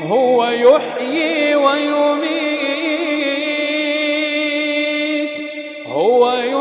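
Male Quran reciter chanting in melodic tajweed style. The voice opens with a quick rising, ornamented turn, holds one long steady note with slight wavering, then sweeps up again near the end.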